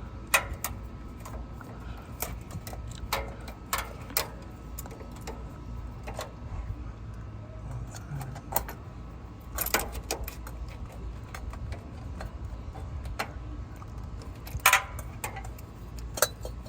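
Irregular metallic clicks and clinks from a tool and a new oil filter being worked on and threaded into place under a car, over a low steady hum. The loudest clinks come about ten seconds in and near the end.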